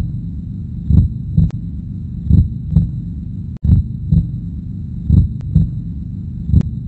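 A slow, regular beat of deep double thumps, a pair about every one and a half seconds, over a steady low hum, like a heartbeat on a soundtrack.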